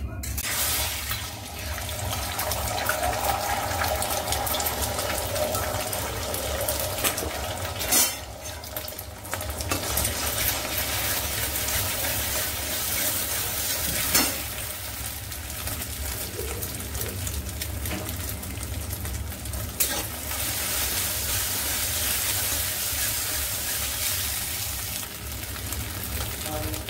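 Beaten eggs sizzling as they fry in hot oil in a steel kadai, starting as soon as they are poured in, while a metal spatula stirs and scrapes them into a scramble. A few sharp clicks of the spatula against the pan come several seconds apart.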